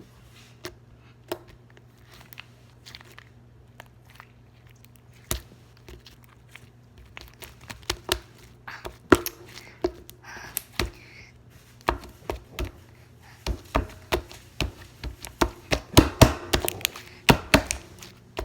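Hands squishing and pulling at sticky homemade slime, making irregular sharp clicks and pops, sparse at first and coming thick and fast in the second half.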